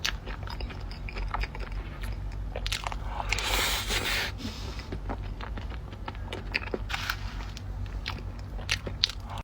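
Close-miked eating of a cake with crunchy Oreo crumbs: bites and chewing with many small crunches. The crunching is louder and denser about three and a half to four seconds in.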